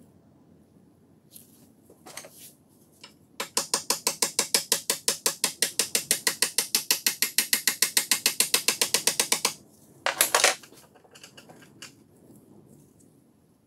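A metal tool scraping rapidly back and forth along the rusted steel beam of an old Helios vernier caliper, working at the rust. It makes about five or six sharp, even strokes a second for some six seconds, then a short harsher burst about half a second after they stop.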